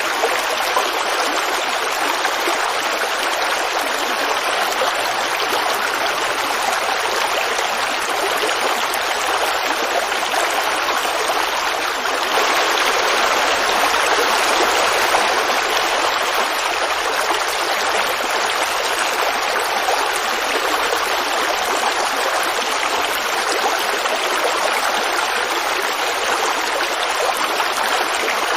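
Creek water flowing and babbling steadily, swelling a little for a few seconds about halfway through.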